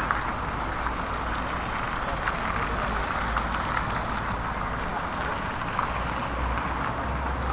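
1983 Hitachi UH081 excavator's diesel engine running steadily, with a steady low hum and scattered light clicks.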